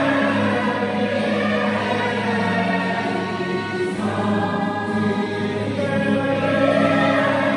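Background music: a choir singing long held chords that shift every second or two.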